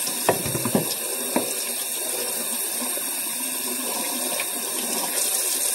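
Kitchen tap running steadily into the sink, rinsing cooked rice in a colander, with a few light knocks in the first second and a half.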